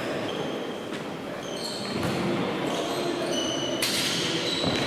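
Tchoukball play in a sports hall: shoes squeak briefly and often on the court floor over a steady background of hall noise and faint voices, with one sharp impact near the end as the ball strikes something.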